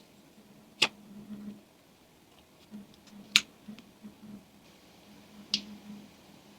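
Handling noise: three sharp clicks about two to two and a half seconds apart, with softer taps and rustles between them, over a faint steady low hum.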